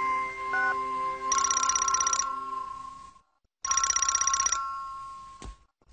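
Telephone bell ringing twice, each ring a rapid trill lasting about a second, with a pause of over a second between them; a third ring starts near the end.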